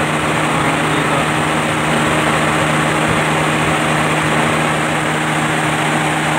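Electric radiator fan of a Suzuki Multicab running steadily, a constant motor hum under a rush of air, with the F6A engine idling at operating temperature. The fan has been switched on automatically by the thermo switch through the newly installed relay.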